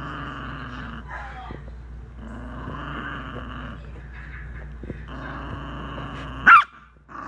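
Small dog growling in repeated runs of about a second and a half, each broken by a short pause, an angry warning growl with teeth bared. Near the end one short, sharp, loud outburst cuts the growling off.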